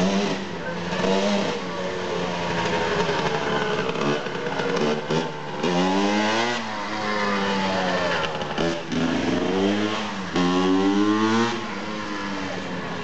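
Honda CR125 two-stroke dirt bike engine revving as the bike rides along, its pitch climbing in several rising sweeps and dropping back between them.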